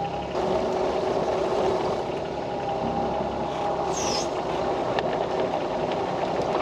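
Small Sany excavator running as it travels slowly, its engine and drive making a steady whine that gets louder about a third of a second in. There is a brief high squeal near the middle and a single click a second later.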